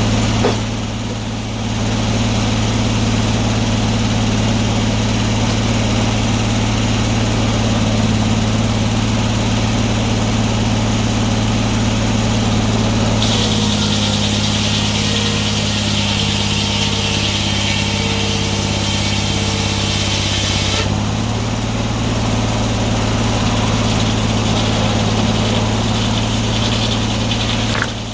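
Antique sawmill running with a steady engine drone. About halfway through, for around eight seconds, a high hiss rises over the drone and the engine note shifts under load as the saw cuts through the log; then it drops back to the steady run.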